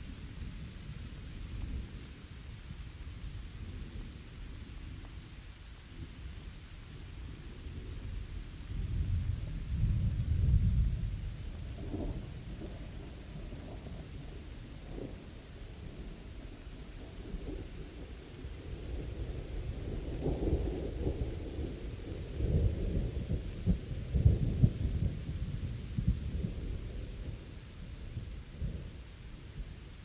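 Steady rain with rolling thunder. Low rumbles swell twice, about a third of the way in and again past the middle, the second longer and peaking near the end.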